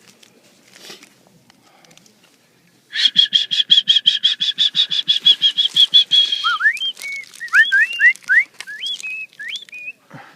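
A person whistling a bird call: a fast warbling trill of about eight pulses a second for three or four seconds, then a series of short rising slide whistles.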